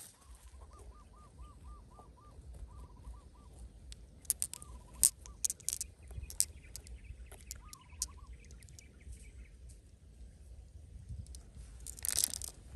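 A bird calling in a quick run of repeated short notes, then a few shorter runs, with scattered sharp clicks in the middle and a brief rustle near the end.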